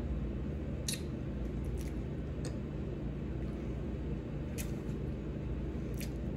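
Steady low room hum with a few faint, brief clicks.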